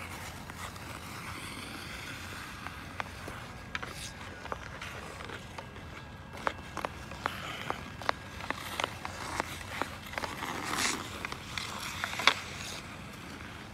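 Ice hockey on an outdoor rink: sticks clacking against the puck and ice in quick, irregular clicks, with skate blades scraping and a brief rush of scraping ice just before one loud sharp crack near the end.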